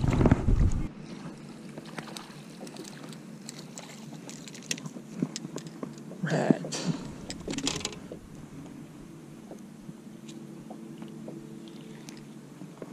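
Small waves lapping against a small fishing boat's hull, with scattered clicks and rustles as a caught perch is handled, the louder handling noises near the middle.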